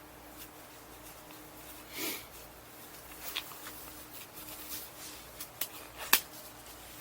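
Quiet room with a faint steady hum and a few small clicks and taps from hands handling things, the sharpest click about six seconds in.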